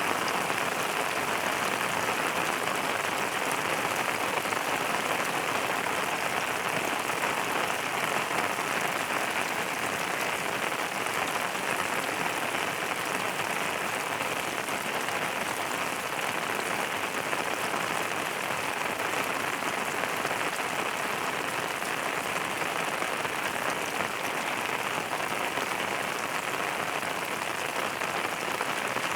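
Steady, even rainfall: dense patter of rain on a surface, with no change in strength.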